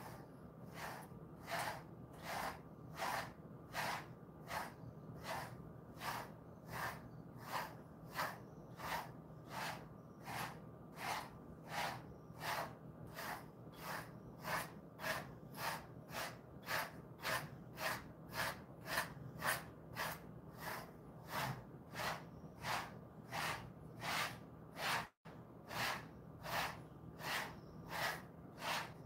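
A pet brush sweeping through a Jindo-mix dog's short coat in a steady rhythm of brushing strokes, about two a second.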